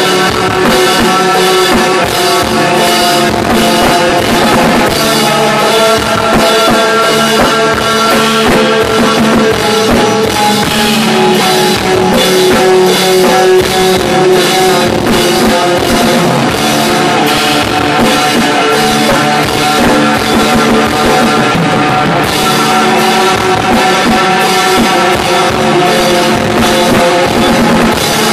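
Instrumental sludge/doom metal band playing live: electric guitars hold sustained chords over a full drum kit, with steady, regular drum and cymbal hits.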